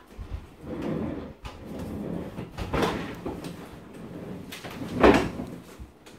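Wall-oven door being handled, opened and shut, giving a series of knocks and clunks, the loudest about five seconds in.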